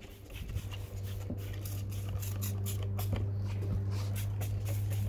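Hand trigger spray bottle squirting cleaner onto an aluminum wheel in quick repeated pumps, each a short hiss, over a steady low hum that is the loudest sound throughout.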